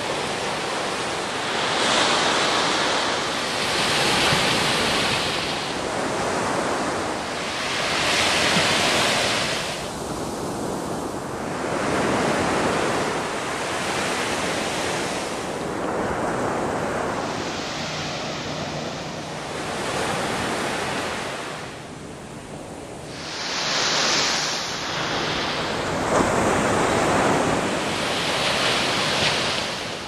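Ocean surf: waves breaking and washing up the sand, a steady hiss that swells and falls back every few seconds.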